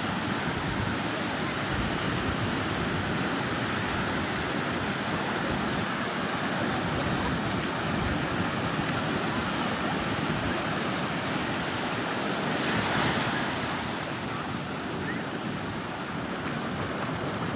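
Surf washing onto a sandy beach in a steady roar of noise, with one wave breaking louder about two-thirds of the way through.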